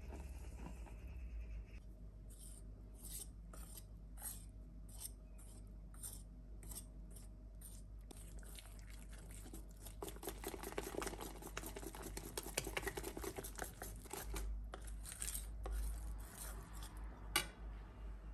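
Wire whisk stirring flour into an egg batter in a stainless steel bowl. Slow, separate strokes at first, then fast continuous whisking from about ten seconds in, with a single sharp click near the end.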